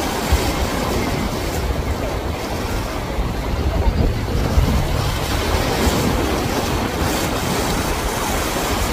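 Wind buffeting the microphone over the wash of surf and choppy water, with a powerboat running at speed through the waves.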